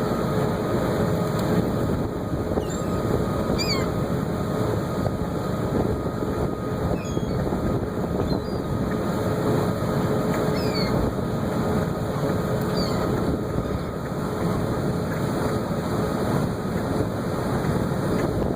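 Ferry engine running with a steady hum under wind noise, and a handful of short, sweeping bird calls now and then.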